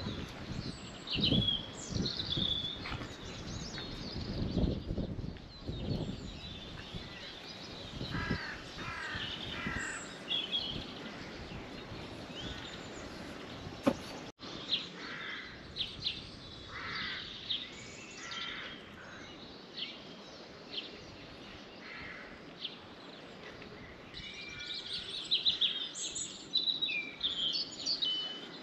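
Outdoor birdsong: small birds chirping and calling throughout, with a few runs of harsher, caw-like calls. Low rumbling thumps sound in the first few seconds, and there is a sharp click about halfway through.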